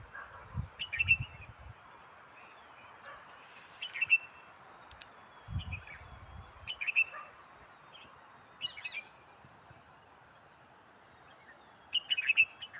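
Birds calling in short chirping bursts every second or two, with a denser flurry of calls near the end, over a faint steady hiss. A few dull low thuds come near the start and again midway.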